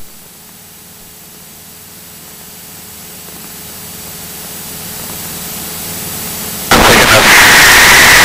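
Cessna 172's engine and cabin noise, faint at first and slowly swelling, then cutting in suddenly at full loudness about two-thirds of the way through.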